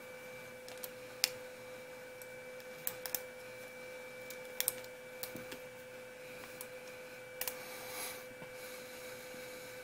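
Scattered light clicks and taps of hard plastic RC-car parts, a chassis brace and wheelie bar, being handled and fastened by hand, over a faint steady hum.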